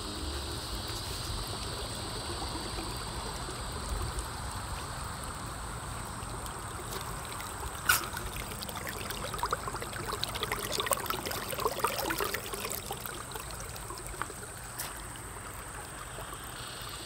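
Shallow creek running over stones and gravel with a steady rippling rush, with a livelier patch of small splashes and gurgles about halfway through. A single sharp click about eight seconds in.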